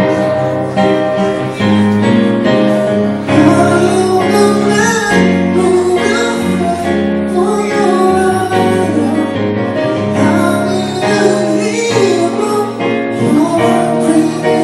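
Live acoustic music: a singer performing a melody over steady instrumental accompaniment.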